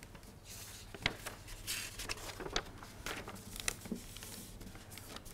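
Faint, scattered rustling of paper, a few soft crinkles and shuffles over quiet room tone.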